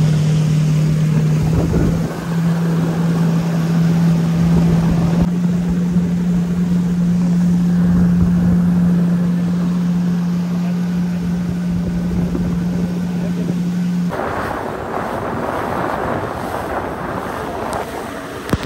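Jet ski running at speed over choppy sea: a steady engine drone under heavy wind buffeting on the microphone and rushing water. The drone drops away about fourteen seconds in, leaving wind and splashing spray.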